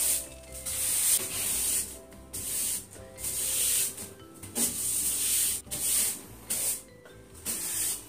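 Long-handled broom sweeping a wooden floor: a run of short, hissy swishing strokes, roughly one every half second to a second.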